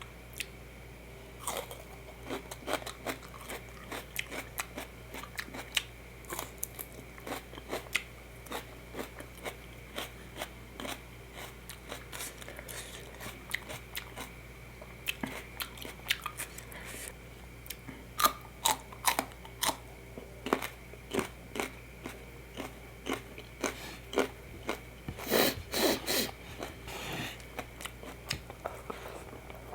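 A person chewing and biting food close to the microphone: irregular wet mouth clicks and crunches, with a louder cluster of crunches near the end.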